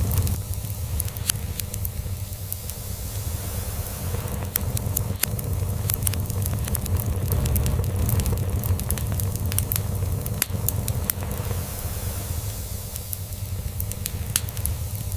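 Log fire crackling, with scattered sharp pops, over a steady low rumble of a cat purring.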